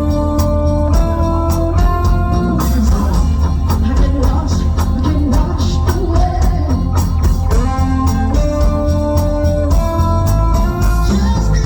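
Pop music with a steady drum beat, sustained organ-like keyboard chords and a singing voice.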